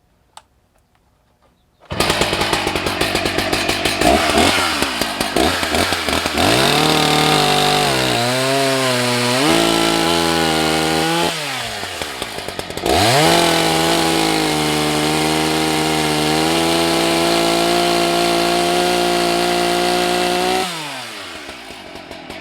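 Husqvarna 181 SE two-stroke chainsaw with a 24-inch bar and an unsharpened chain, running at high revs through a test cut. Starts suddenly about two seconds in, with the revs wavering and dipping under load. The revs drop briefly about halfway through, then rise again and hold steady before the throttle is released near the end and they fall away.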